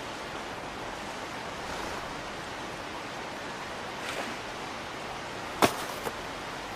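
Steady rush of river water. Near the end a sharp click cuts in once, followed by a fainter one.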